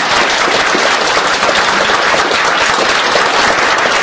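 Audience applauding: many people clapping, steady and loud.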